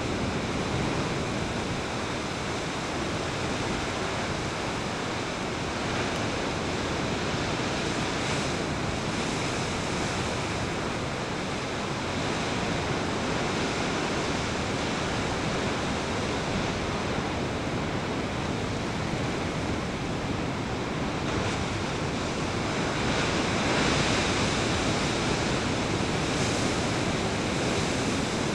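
Rough Pacific surf breaking and washing around offshore rocks: a continuous wash of breaking waves that swells a little louder about two-thirds of the way through.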